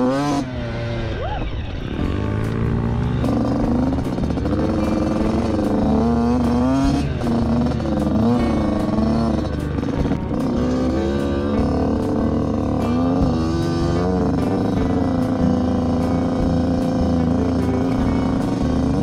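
Dirt bike engine revving up and easing off again and again as it is ridden along a trail, the pitch climbing and dropping with the throttle and gear changes, over a low wind rumble on the microphone.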